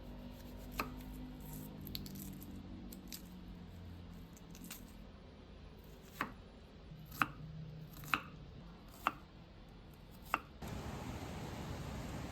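Single knife strokes knocking on a cutting board, spaced about a second apart, over a faint low hum. About three-quarters of the way through they give way abruptly to the steady hiss of rain.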